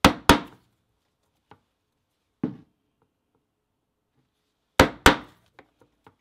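Mallet striking a multi-prong stitching chisel to punch stitching holes through vegetable-tanned leather: a quick pair of sharp strikes, a single strike about two and a half seconds in, and another quick pair near the end, with a few faint clicks in between.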